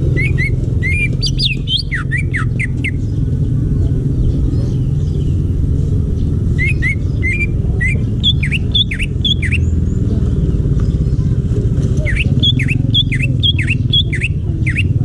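A green leafbird (cucak ijo) singing in three bursts of quick, sharp whistled chirps, several seconds apart, over a steady low rumble.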